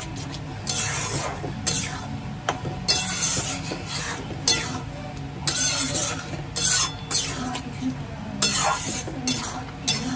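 Spatula stirring and scraping chicken and spices in a pan as they fry, in irregular strokes about once or twice a second, with a sizzle underneath.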